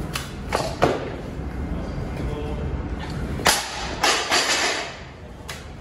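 Loaded Olympic barbell during warm-up lifts: several sharp knocks and clanks of the bar and plates, the loudest just before a second in and again about halfway through, over a low steady gym hum.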